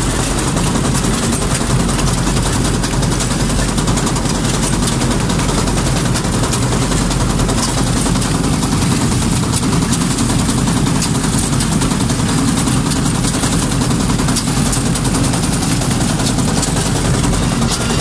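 Combine harvester running steadily while cutting rice: a constant engine hum under a continuous rattle from the reel, cutter bar and header auger, heard from the operator's cab.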